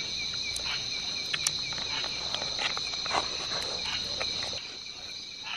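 Night insect chorus, a steady high-pitched trilling, with faint scattered clicks.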